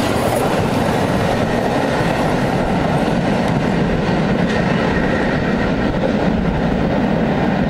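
Empty flat wagons of a freight train rolling past close at speed: a steady, loud noise of wheels running on the rails.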